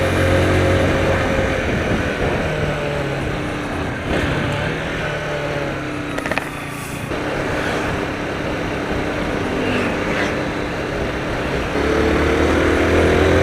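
Car engine and road noise heard from inside a moving car, the engine note shifting in pitch a few times, with a brief click about six seconds in.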